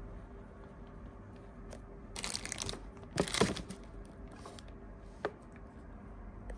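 Plastic wrapping crinkling in two short bursts about a second apart, with a few light clicks over a low steady hum.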